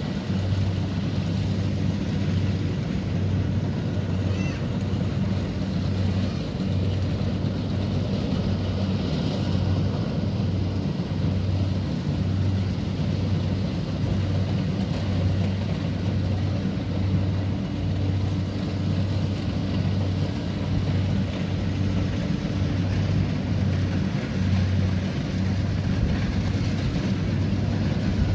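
Kubota DC70 Pro combine harvester running steadily while harvesting rice, its diesel engine and threshing gear giving a continuous low drone.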